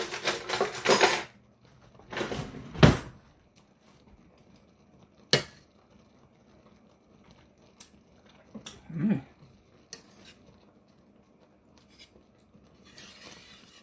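Scattered kitchen handling sounds over a pot of simmering gravy: a couple of brief clattering scrapes and a single sharp clink of a utensil, with quiet gaps between.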